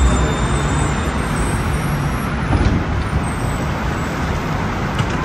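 Steady rumble of tram and road traffic, with a couple of faint clicks about two and a half and five seconds in.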